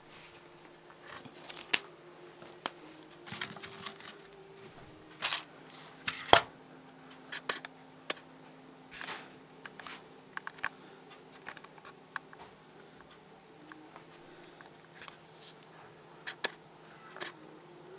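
A lop-eared dwarf rabbit moving about and eating. Irregular soft clicks, scratches and rustles come from its claws on a cloth-covered table and from food pellets in its bowl, with one sharper knock about six seconds in.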